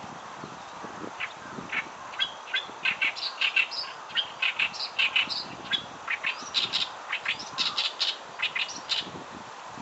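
Oriental reed warbler singing: a rapid, uneven run of short, scratchy notes that starts about a second in and carries on almost to the end.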